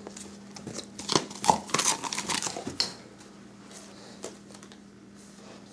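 Wrapping paper crinkling and tearing as a German Shorthaired Pointer paws and bites at it: a busy run of rustles and rips about a second in, lasting a couple of seconds, then only a few scattered crinkles.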